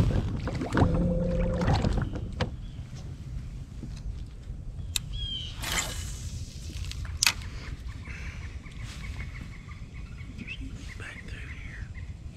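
Electric trolling motor whining steadily for about two seconds as it moves the bass boat, then a low rumble with a few sharp clicks and knocks and faint bird chirps.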